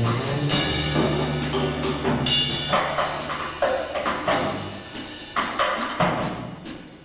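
Jazz duet of upright double bass and drum kit. Low bass notes are held through the first half, with sharp drum and cymbal strokes running throughout.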